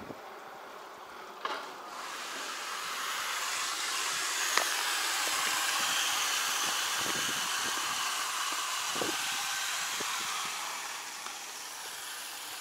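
Mineral spring water running into a plastic 1.5-litre bottle: a steady hiss that starts about a second and a half in and fades away near the end.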